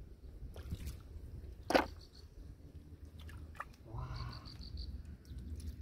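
Scattered clicks and knocks of freshwater snail shells being picked up by hand and dropped into a plastic bucket, with one sharp knock a little under two seconds in.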